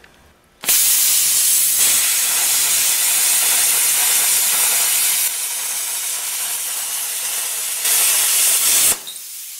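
Hypertherm Powermax 45 plasma cutter at full amperage cutting through 3/8-inch steel plate: a loud, steady hiss of the arc that starts suddenly just over half a second in and eases a little partway through. About nine seconds in it cuts off sharply, leaving a quieter hiss.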